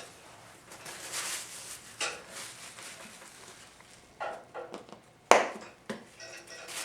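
Workbench handling noises: transmission parts and tools being moved and set down, a few scattered knocks and rustles, with one sharp knock about five seconds in.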